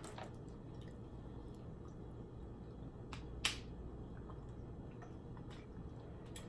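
A few small clicks of a plastic water bottle being handled and drunk from, the sharpest about three and a half seconds in, over low steady background noise.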